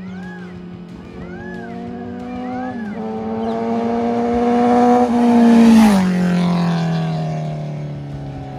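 Kawasaki inline-four superbike approaching under steady high revs, its note stepping up about three seconds in and getting louder, then dropping sharply in pitch as it flies past about six seconds in and fading away.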